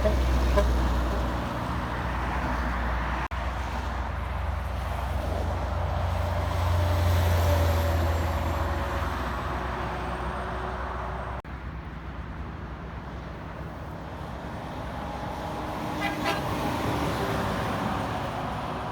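Road traffic with the deep engine rumble of a heavy vehicle going by. The rumble swells about seven seconds in and cuts off suddenly a few seconds later, leaving lighter traffic noise.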